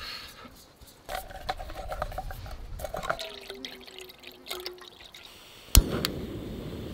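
Water poured from a bottle into a Jetboil stove's cooking cup, splashing and gurgling for a few seconds. Near the end a single sharp click of the stove's push-button igniter, and the gas burner lights and keeps burning with a steady hiss.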